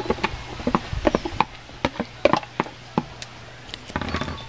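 Irregular light knocks and taps of a utensil scraping and striking a plastic plate and the rim of an aluminium pot as chopped vegetables are tipped into the pot, with a denser clatter near the end.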